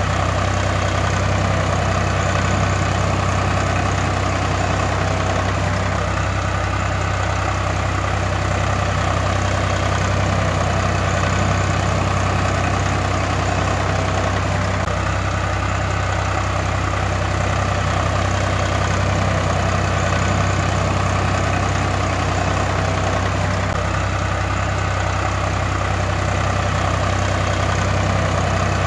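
Tractor engine sound running at a steady idle with an even low chug, looping about every nine seconds.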